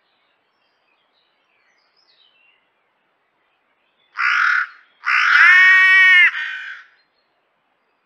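Crow cawing twice: a short harsh caw about four seconds in, then a longer, drawn-out caw.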